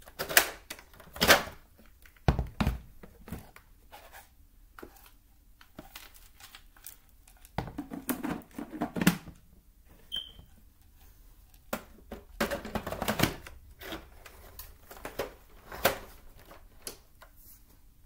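Irregular plastic clicks, knocks and rattles as the dust cup of a 2007 Hoover WindTunnel Twin Chamber bagless upright is unlatched, lifted out and clicked back into its housing. The loudest clatters come near the start and in two bursts about 8 and 13 seconds in. The vacuum motor is not running.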